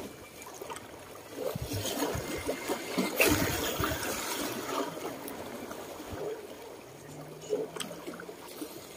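Small sea waves lapping and washing against the rocks of a breakwater, with a trickling, gurgling wash and a louder splash about three seconds in.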